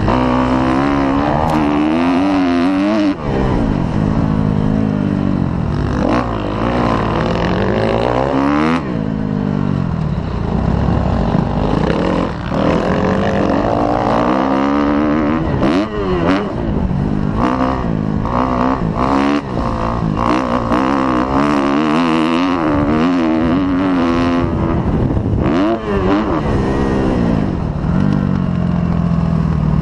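Motocross dirt bike engine heard close up from the rider's helmet, revving up and dropping off again and again as the throttle is worked and gears are shifted around the track, with occasional sharp knocks.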